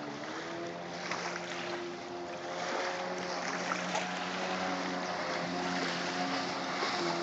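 Jet ski engine running as it speeds across the water, its pitch stepping up and down with the throttle and growing louder toward the end as it comes closer, over a hiss of water and wind.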